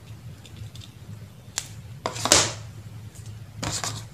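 Handling noise from cables and a cardboard box being worked by hand: a sharp click about one and a half seconds in, then two brief rustling scrapes, the first the loudest, over a steady low hum.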